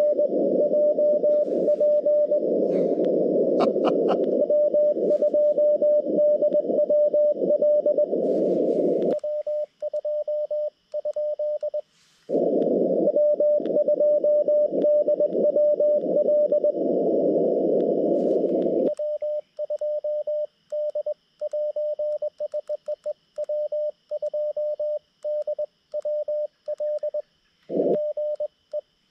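Morse code (CW) from a Xiegu G90 transceiver: received signals from a pileup of calling stations in narrow-filtered band noise, alternating with the clean sidetone of the operator's own keying. He sends from about nine to twelve seconds in and again from about nineteen seconds.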